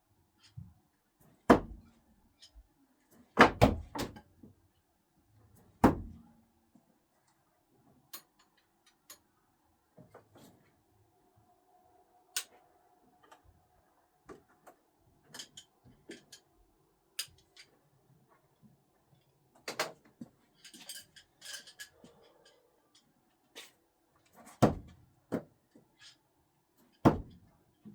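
Screwdrivers thrown no-spin hitting a throwing target with sharp thuds: one a little over a second in, two close together a few seconds in, another at about six seconds, then a long gap with small clicks and knocks before two more hits near the end.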